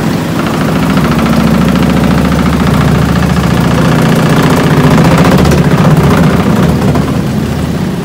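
Kuppet twin-tub portable washer's spin dryer running at speed: a loud, steady motor hum as the spin basket spins the water out of the clothes.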